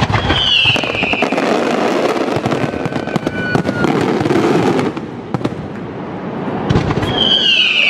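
Fireworks display finale: a dense, rapid string of bangs and crackles from bursting aerial shells and ground fountains. A high whistle slides down in pitch near the start and again near the end.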